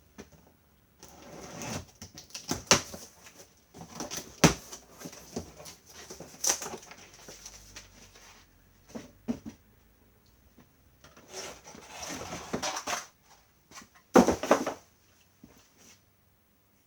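Packaging being handled while a vacuum cleaner is unpacked: irregular rustling in several stretches with a few sharp knocks, the loudest near the start, a few seconds in and near the end.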